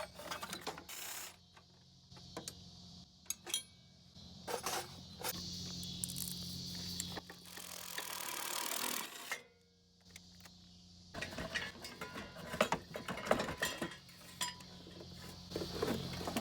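Irregular metal clanks, clinks and knocks of hand tools and parts as a riding-mower engine is unbolted and worked off its frame, with a faint steady hum underneath.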